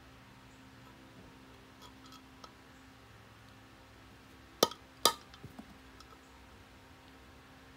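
Two sharp metal strikes about half a second apart, hammer blows on a punch set against the bearing race in a brake drum's hub to drive it out from the back side, with light clinks of the tool before and after.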